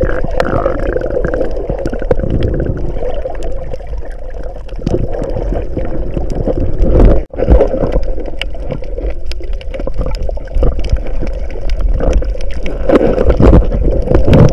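Seawater sloshing and gurgling, with many small clicks and knocks throughout; the sound breaks off for an instant about seven seconds in.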